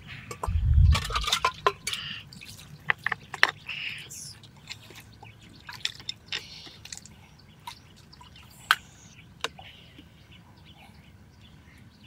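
Water dripping and splashing with scattered sharp knocks and clicks. The heaviest thump comes about a second in; after about four seconds the sounds grow sparser and fainter.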